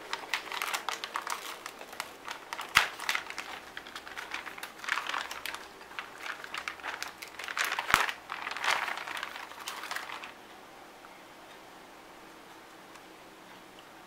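Metallised anti-static shielding bag crinkling as it is handled and pulled off a motherboard, with two sharp knocks, one about a fifth of the way in and one past the middle. The crinkling stops abruptly about ten seconds in, leaving faint room tone.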